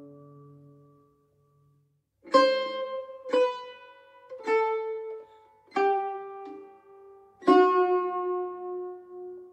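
Solo Persian tar played slowly. A plucked note dies away and there is a short pause. Then come five single plucked notes about a second apart, each lower than the last, and the final one is left ringing.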